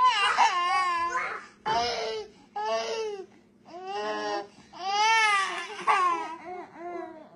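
A baby crying and fussing in a string of short, wavering wails with brief breaks between them. The twin without the pacifier is reaching for the one her sister has in her mouth.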